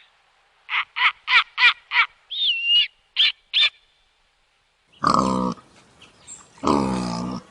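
A bird chirping in a quick run of about seven short high notes with one gliding whistle among them, then two longer calls from a larger farm animal about a second and a half apart.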